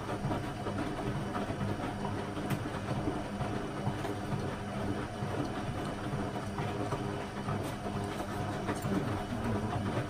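Hoover Zodiac 12 front-loading washing machine in its rinse stage, the drum tumbling the wash with a steady motor hum and scattered light clicks.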